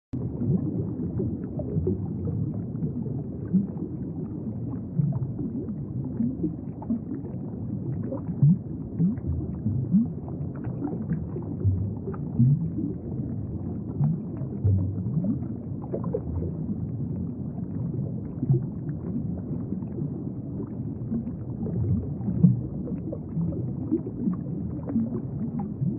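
Muffled underwater ambience: a steady low rumbling wash with frequent short bubbling pops and gurgles.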